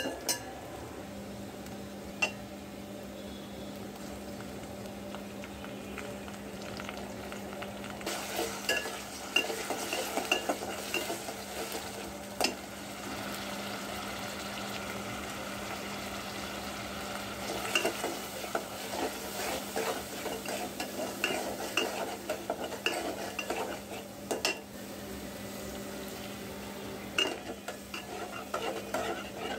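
Onions and spice masala sizzling in hot oil in an aluminium pot. A steel spoon scrapes and clinks against the pot in bouts of stirring.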